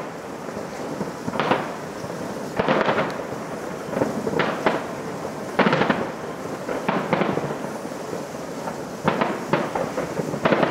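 Aerial fireworks shells bursting: a dozen or so booms at uneven intervals, some in quick pairs, with steady noise between them.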